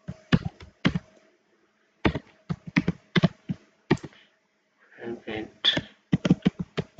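Computer keyboard typing: short runs of sharp keystroke clicks, broken by gaps of about a second.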